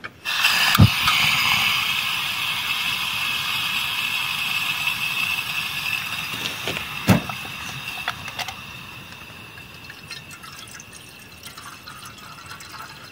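Water being poured into a pot to make tea, a steady splashing rush that starts suddenly and slowly fades away, with two knocks, one about a second in and one about seven seconds in.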